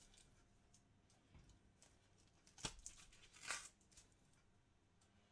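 Mostly near silence, with a sharp click a little past halfway and a short papery rustle about a second later, as tags and packaging are pulled off.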